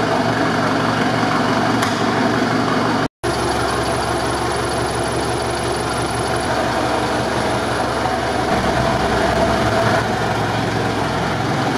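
Rebuilt GAZ-63 truck's engine running steadily at idle. The sound cuts out for an instant about three seconds in, and the low engine note shifts a little near the end.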